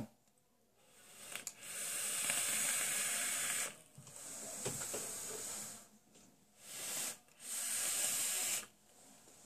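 Vaping through a rebuildable atomizer with fused Clapton coils on a box mod. A long draw about a second in makes a steady hiss of air and vapour through the atomizer for a couple of seconds, followed by a softer, breathy exhale of the vapour cloud. Near the end there is a short second hissing draw, with the wicks running dry.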